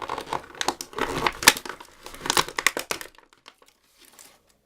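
Plastic packaging crinkling and rustling as small plastic toy pieces are handled, with sharp crackles; it stops about three seconds in.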